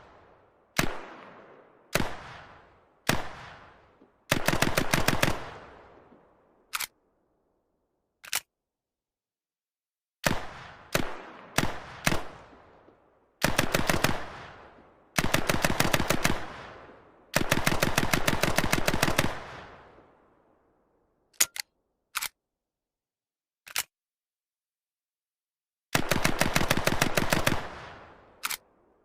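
M3A1 "grease gun" submachine gun (.45 ACP) firing, with single shots and short bursts early on, then several bursts of automatic fire, the longest about two seconds. Each shot or burst trails off in an echo.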